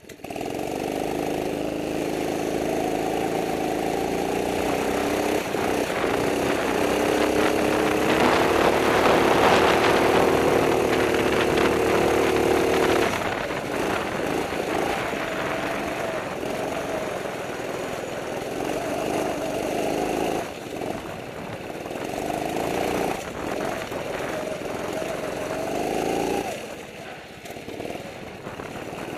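Racing kart's small engine heard from on board, revving up to a high steady pitch, then dropping sharply about thirteen seconds in. It keeps rising and falling with the throttle, climbing again and cutting back suddenly near the end.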